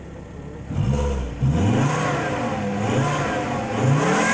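Volvo C30's turbocharged straight-five engine on its stock exhaust, blipped from idle: a little under a second in the revs start rising and falling, several quick revs in a row.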